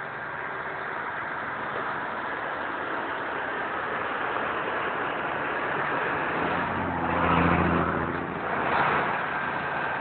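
Loaded diesel dump truck driving down a dirt slope and passing close by, its engine growing louder and loudest about seven to nine seconds in, then fading.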